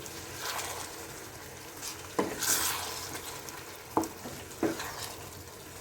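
Masala gravy sizzling in a pan as it is stirred, with three knocks of the spoon against the pan and a brief louder hiss just after the first knock.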